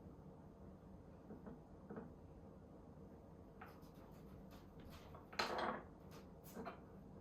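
Quiet room with a few light clicks and taps, and one short scraping rustle a little past five seconds in, the loudest sound.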